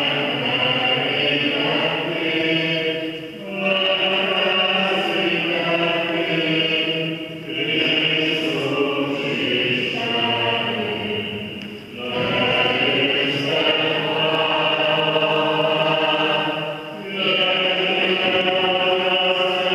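Liturgical chant of the Byzantine-rite Divine Liturgy, sung by several voices in long held phrases. There are short breaks between phrases about every four seconds.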